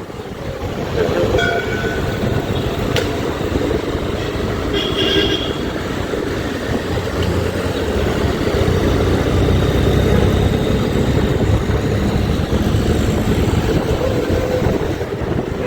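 Motorcycle riding at speed: steady engine and wind rumble, with two short horn toots about a second and a half in and again about five seconds in.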